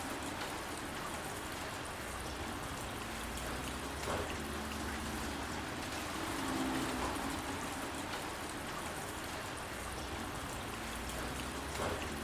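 Steady rain falling, an even hiss of drops, with a sharper drip about four seconds in and again near the end.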